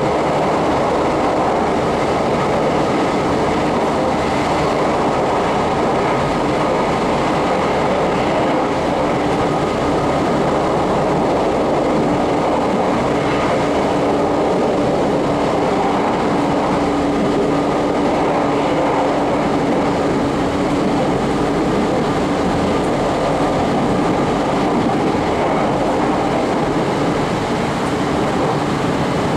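Train running at steady speed: a continuous rumble and rush of noise with a faint steady hum, unchanging throughout.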